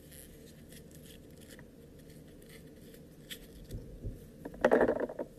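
White slime being squeezed and pulled apart by hand: faint sticky crackling and clicks, then a louder burst of crackling clicks near the end as it tears.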